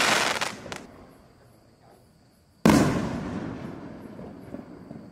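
5-inch firework canister shells going off. A loud bang's tail fades away in the first second, then about 2.6 s in another sharp, loud bang goes off and rings out slowly.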